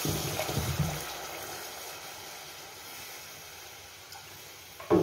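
Water poured into a pot of black chickpeas frying in ghee, splashing in over about the first second. The hiss of the hot masala then fades steadily to a low bubbling as the water settles.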